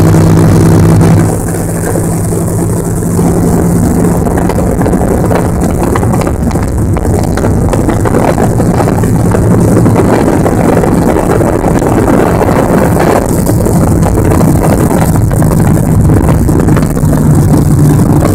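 Motorboat engine running steadily under way while towing a tube, mixed with the rush of the wake and wind noise.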